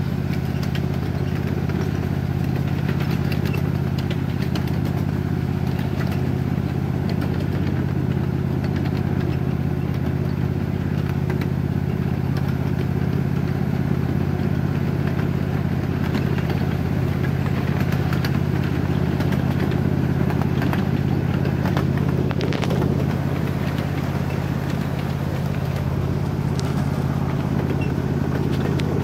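Ride-on miniature railroad train rolling steadily along its track: a constant low drone with light clatter from the wheels on the rails.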